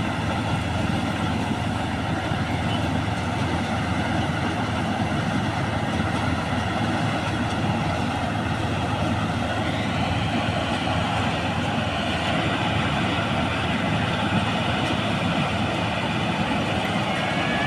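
New Holland combine harvester running, a dense steady mechanical drone. About ten seconds in, its higher-pitched part grows louder.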